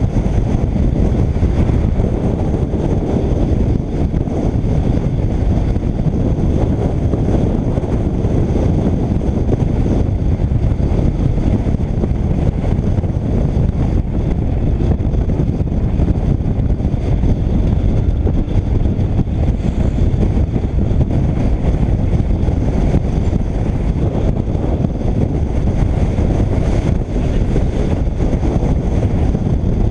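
Steady wind rumble on the microphone of a camera mounted on a moving motorcycle, with road and riding noise beneath, unchanging throughout.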